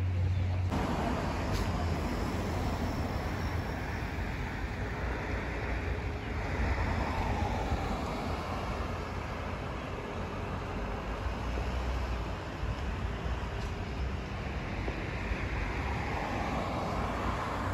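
Outdoor road-traffic noise, a steady rush of vehicles, swelling as vehicles pass about a third of the way in and again near the end.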